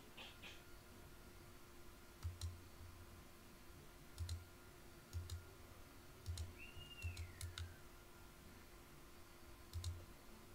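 Faint computer mouse clicks, scattered singly and in quick runs, each with a soft desk thud. A brief falling squeak comes about two-thirds of the way in.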